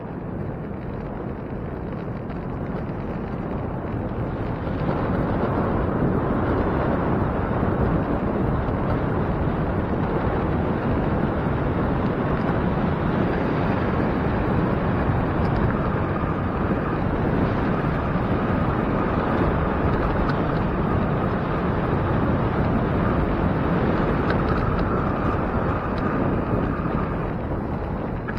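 Wind rushing over the microphone of a camera on a moving bicycle, mixed with road noise; it grows louder about five seconds in. A faint steady whine joins it from about halfway through until shortly before the end.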